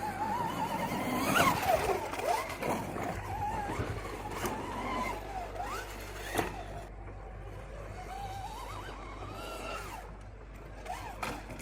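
Ewatt Beast-M off-road vehicle running over rough ground, its motor pitch rising and falling again and again with the throttle, with occasional knocks from the terrain.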